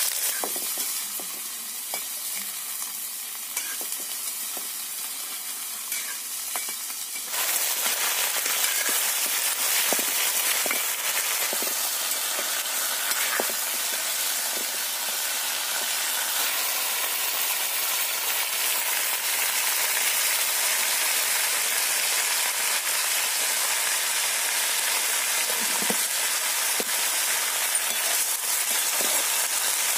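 Potato and brinjal pieces sizzling as they fry in an iron kadai, with a metal spatula scraping and clicking against the pan as they are stirred. The sizzling turns suddenly louder about seven seconds in.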